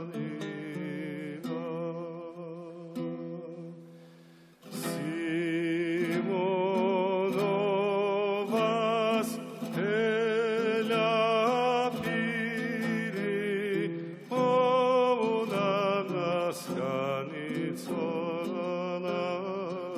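Georgian male vocal ensemble singing a folk song in several-part harmony over a held low drone, with a plucked lute behind them. The voices fade away about four seconds in, then the full group comes back in louder a moment later.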